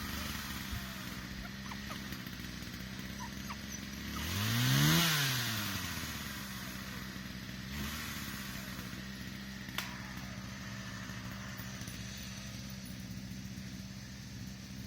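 Two-stroke chainsaw idling steadily, then revved up and back down to idle about four seconds in, with a shorter blip of the throttle near eight seconds.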